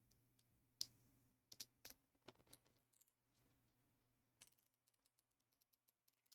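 Faint, scattered clicks and scratches of a pointed plastic spudger picking at the plastic film on a cardboard box, trying to lift it from the edge; most of the clicks fall in the first half.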